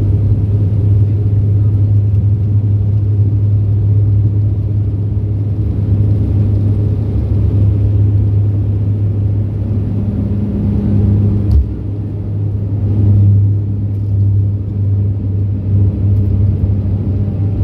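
Cabin noise of a De Havilland Q400's Pratt & Whitney PW150A turboprops at takeoff power during the takeoff roll: a loud, steady low propeller drone with rumble. A single brief click comes about two-thirds of the way through.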